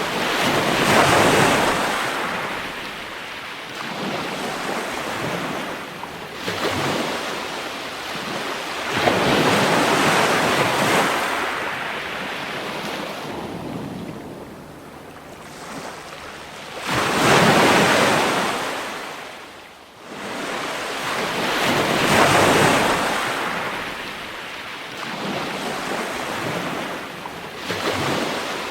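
Ocean waves breaking and washing in, in slow surges every few seconds, with the loudest crashes about a second in, around ten seconds, around seventeen seconds and around twenty-two seconds. Wind is heard on the microphone.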